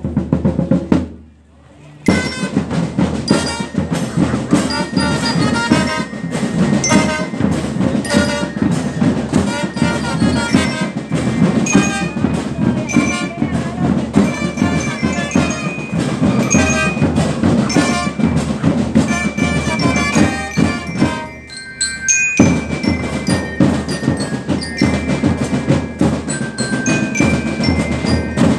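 Marching band playing: snare and bass drums beating a steady march rhythm while bell lyres ring out the melody. The music drops out briefly about a second in and dips again for a moment about three-quarters of the way through.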